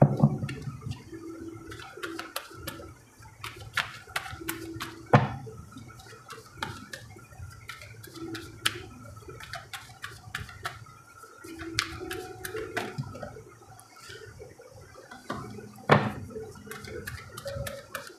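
Tarot cards being shuffled and handled: irregular soft rustling with sharp card snaps and clicks, the loudest about five seconds in and again near the end.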